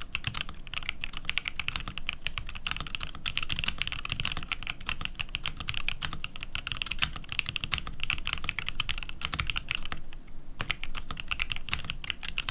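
Fast touch-typing on a Tofu 65 custom mechanical keyboard with linear Alpaca switches: a dense, clacky run of keystrokes, with a brief pause about ten seconds in.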